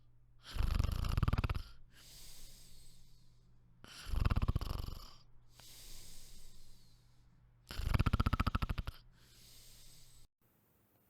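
Snoring: three loud snores, each a rattling in-breath followed by a softer, breathy out-breath, about three and a half seconds apart; it cuts off abruptly near the end.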